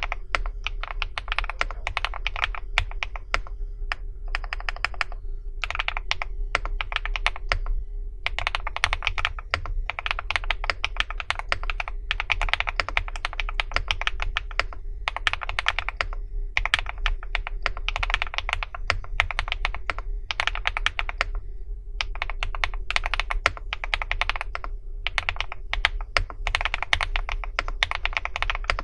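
Typing on a Meteor80 custom mechanical keyboard: runs of rapid keystroke clicks, a second or two at a time, broken by short pauses.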